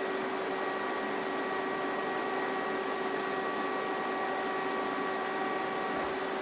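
Welding arc buzzing steadily as a tube in an airplane's fuselage frame is tack-welded.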